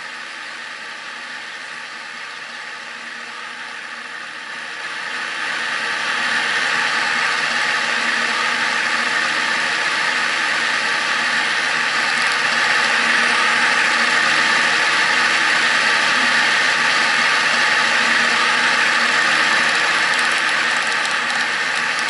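Avantek white noise machine playing a steady hiss, turned up about five seconds in and again around twelve seconds, then turned down near the end, with a few faint button clicks.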